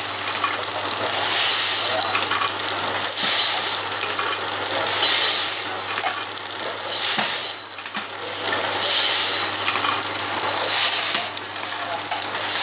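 Automatic tea pouch packing machine running, forming and sealing a continuous chain of tea pouches. It gives a hissing burst about every two seconds, one per cycle, over a steady low hum.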